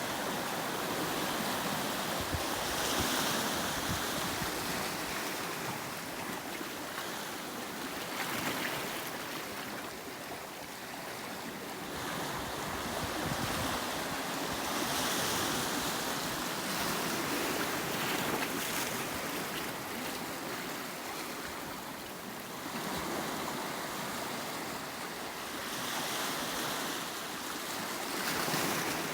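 Sea waves breaking and washing against the rocky shore of Yongmeori Coast, a continuous surf wash that swells as each wave comes in every several seconds.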